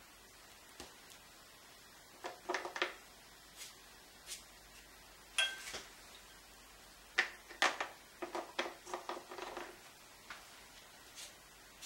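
Light clinks and taps of painting tools against dishware, in two short clusters, with one ringing clink about five and a half seconds in.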